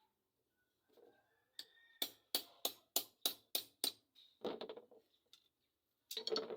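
Hammer blows on steel at the anvil: about seven quick ringing strikes at roughly three a second, followed by a couple of duller knocks.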